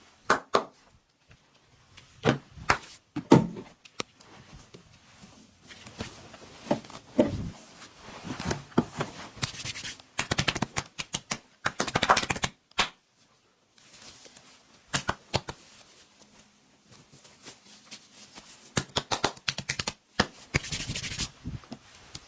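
Hands massaging a person: bursts of rapid slapping and tapping strikes on the body, with short stretches of rubbing on skin in between.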